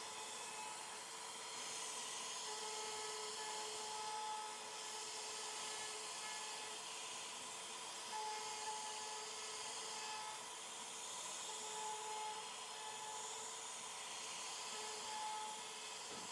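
CNC router cutting into wood: a steady high spindle whine over cutting noise, with tones that swell and fade every second or two as the bit works through the cut.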